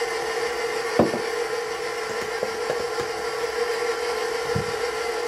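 Red stand mixer running steadily at low speed with a steady hum, beating chocolate cake batter in its steel bowl. A sharp knock sounds about a second in and a duller thud near the end.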